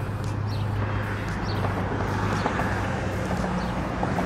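Steady low hum of a motor vehicle engine running close by, with a few faint small clicks over it.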